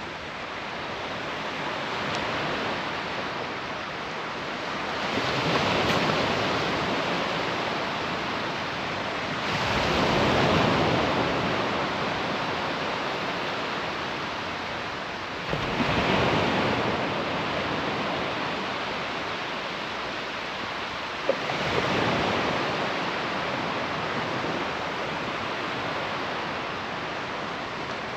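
Surf on a sandy beach: waves breaking about every five to six seconds, with a steady wash of water between them.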